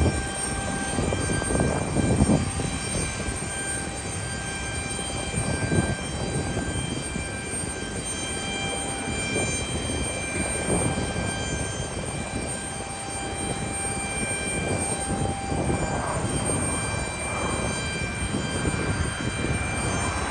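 Jet aircraft engines at an airport: a steady high whine over a broad rumble, with irregular gusty surges in the low end.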